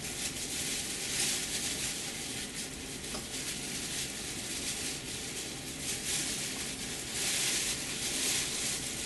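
Thin plastic shopping bag rustling and crinkling as a glass bottle is wrapped in it by hand, coming and going in several louder spells.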